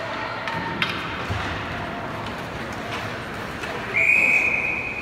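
A referee's whistle blown in one long steady blast starting about four seconds in, over the hubbub of the rink. A single sharp knock sounds about a second in.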